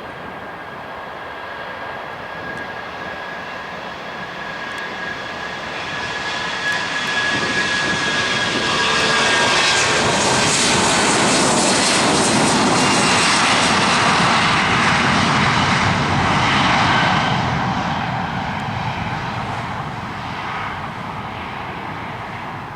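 Jet aircraft passing by. A whining tone rides on the engine noise at first and slides slightly lower as the rush swells, then the sound peaks for several seconds and fades away.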